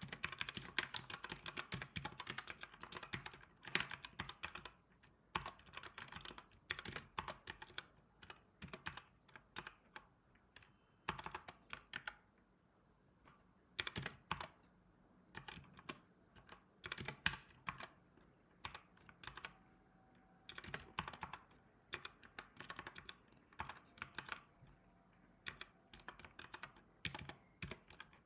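Typing on a computer keyboard: fast runs of key clicks broken by short pauses.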